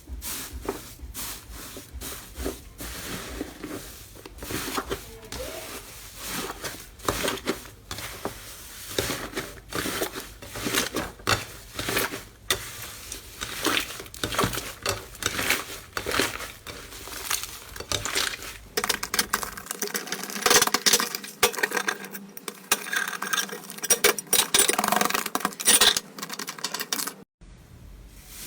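Slime being squeezed and pressed, giving a dense, irregular run of small clicks and pops. The clicks turn brighter and closer-packed about twenty seconds in, then stop briefly near the end.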